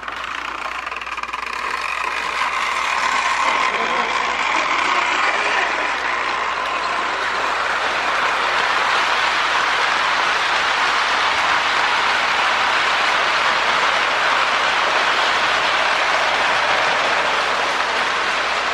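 A Lionel postwar 2056 Hudson toy steam locomotive and tender running on three-rail track, its motor and wheels making a steady whirring rumble. The sound grows louder over the first few seconds, then holds steady. The motor's sticking brushes have just been cleaned.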